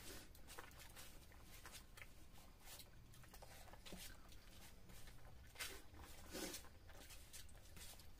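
Faint sounds of eating by hand: fingers squishing and mixing rice and fish-head curry on plates, and mouth smacks, heard as scattered soft clicks over a low steady hum.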